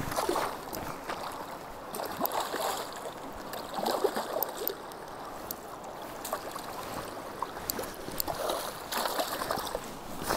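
A hooked coho salmon thrashing and splashing in shallow river water as it is drawn in and netted, in irregular bursts over the steady rush of the river.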